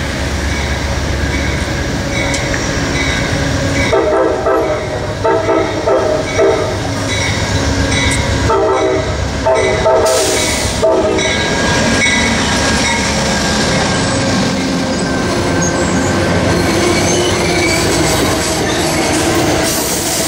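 Amtrak GE Genesis P42DC diesel locomotive passing a grade crossing, sounding its air horn in a series of blasts from about four to eleven seconds in, with the crossing signal bell ringing in a steady rhythm before the horn. After the locomotive, the stainless-steel passenger cars roll past with steady wheel and rail noise.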